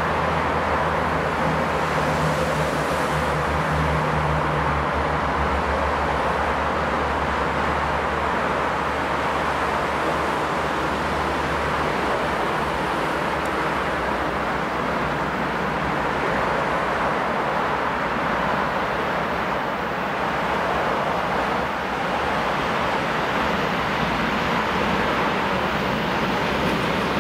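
Steady roar of road traffic, with a low hum under it that fades out about twelve seconds in.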